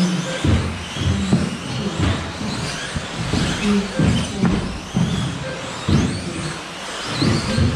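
Electric 1/10-scale off-road RC cars racing on an indoor astroturf track. The motors whine, rising and falling in pitch, over repeated knocks and thumps from the cars on the track, echoing in a large hall.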